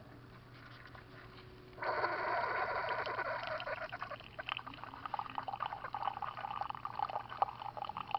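Single-serve coffee brewer starting up about two seconds in, with hot coffee streaming and spattering into a mug.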